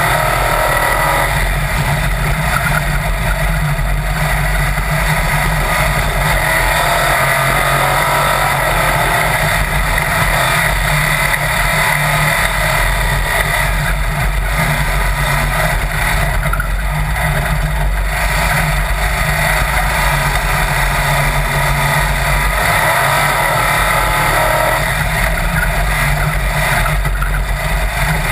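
Sand rail dune buggy engine running at speed, mixed with steady wind rush over the open roll cage.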